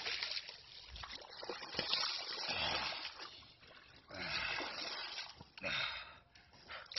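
A large catfish, just landed, flopping and splashing in the shallows at the riverbank as it is handled, in several separate splashes.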